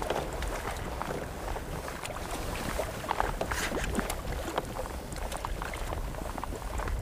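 A hooked trout splashing at the surface beside a kayak, in scattered bursts that are busiest about halfway through, over a steady low rumble of wind on the microphone.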